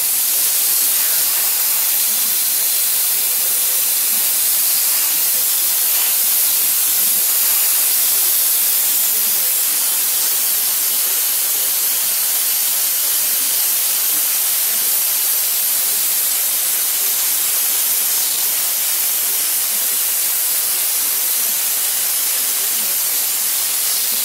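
Gravity-feed airbrush spraying a coat of flat clear lacquer: a loud, steady hiss of compressed air and paint mist.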